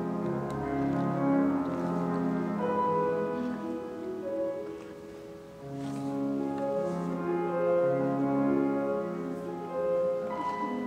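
Slow classical piano music: long, overlapping held notes that thin out and grow quieter about five seconds in, then swell again.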